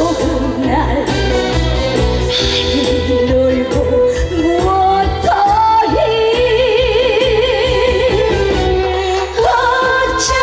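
Live trot song: a female singer holding long notes with wide vibrato over a band with a steady bass beat.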